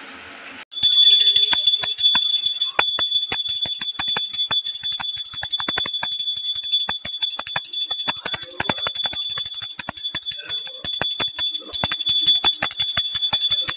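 Brass puja hand bell (ghanti) rung continuously during aarti, the clapper striking several times a second over a sustained high ringing tone. It starts about a second in.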